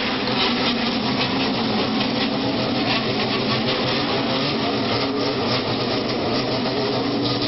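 Motorcycle engines running steadily, a continuous mixed engine noise with no single event standing out.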